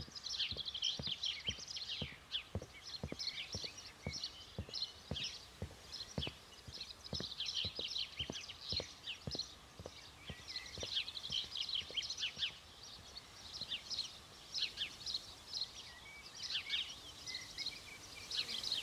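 Small birds chirping and twittering, with footsteps knocking on a wooden walkway about twice a second that thin out after about ten seconds.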